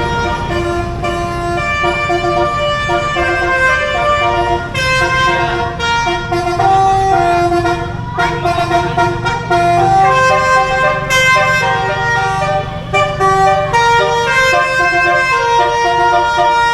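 A bus's musical multi-trumpet telolet (basuri) air horn plays a loud, continuous melody of changing notes, which cuts off suddenly near the end.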